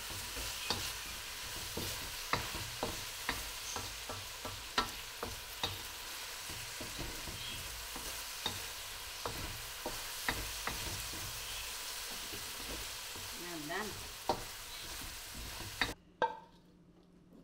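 Chicken and spring onions sizzling in a hot wok while a wooden spatula stirs them, knocking and scraping against the wok every second or so. The sizzle cuts off suddenly near the end, followed by a couple of spatula knocks on the wok.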